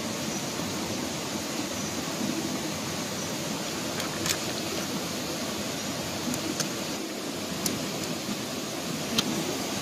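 Steady rush of flowing water, with several sharp, short knocks of a cleaver striking through a plucked chicken onto stone.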